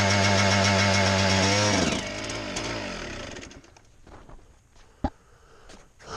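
1999 Suzuki RM125's single-cylinder two-stroke engine running steadily, then shut off about two seconds in, its pitch falling as it winds down to a stop. A sharp click follows a few seconds later.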